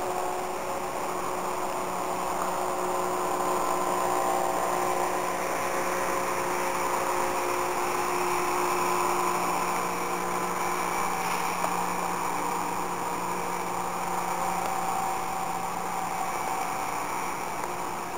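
A steady mechanical drone with a few faint held tones that fade in and out.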